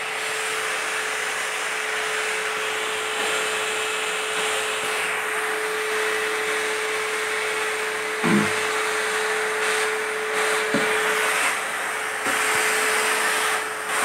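Steady whooshing air noise, as from a fan, with a constant mid-pitched hum under it; a couple of dull knocks about eight and eleven seconds in.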